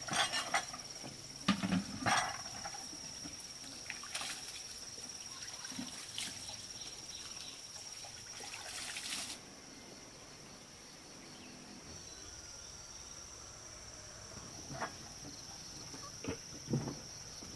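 Steady high drone of insects, with a few sharp knocks and rustles in the first couple of seconds and a short rush of hissing noise about eight to nine seconds in.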